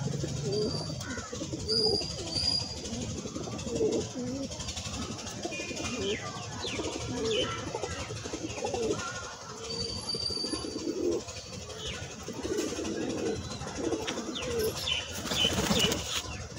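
A flock of domestic pigeons cooing, many low coos overlapping and repeating, with a few thin high chirps above them.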